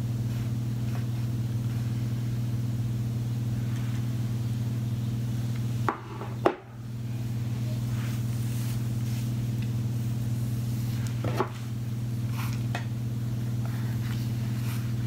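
A steady low hum, with a brief dropout about six and a half seconds in. A few soft knocks and clicks come about six and eleven seconds in.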